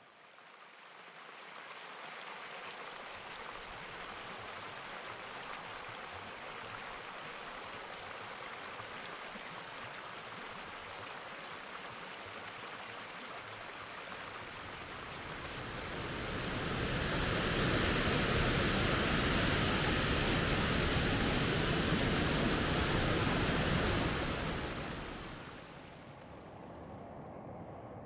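Rushing water of a waterfall and stream, a steady noise that swells much louder for several seconds past the middle, then drops back.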